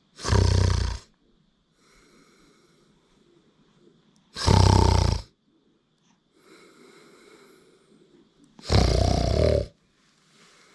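A man's loud, put-on snoring: three long snores about four seconds apart, each lasting about a second.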